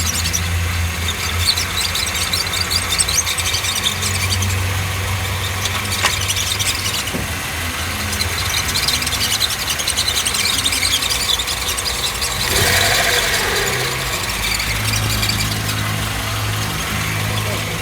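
Hyundai Tucson engine idling with the clutch pedal pressed, and a chirping squeal from the clutch release bearing over the engine hum, louder for a moment about twelve seconds in. It is a bearing noise: the release bearing is dry of grease.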